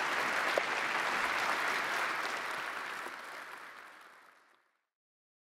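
A large audience applauding, a dense patter of many hands clapping that fades out about four seconds in.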